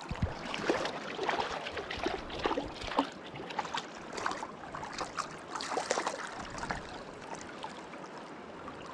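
River water splashing in many small, irregular splashes over the steady rush of the current, with a dull bump just after the start; the splashing eases off near the end.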